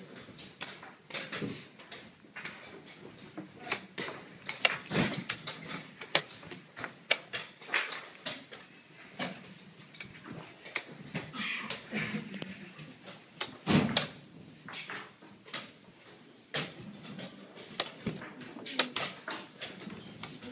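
Blitz chess being played: chess pieces set down on the board and the chess clock's buttons pressed after moves, making quick, irregular clicks and knocks.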